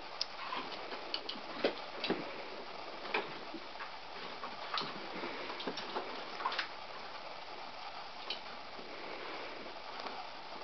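Irregular light clicks and ticks with a few short, high squeaks, from dogs pawing and nosing at a cat toy that squeaks whenever it is moved.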